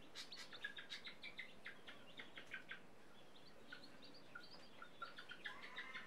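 Baby chicks peeping: quick runs of short, high cheeps, with a brief lull around the middle.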